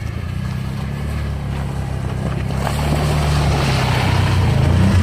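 Off-road vehicle engine running steadily under load and growing louder, with wind and rushing noise on the microphone building in the second half.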